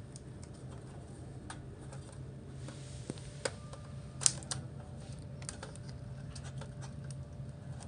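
Light, irregular clicks and taps from hands handling the opened LCD monitor's circuit board and its display-cable connector, with one sharper click a little past halfway, over a steady low hum.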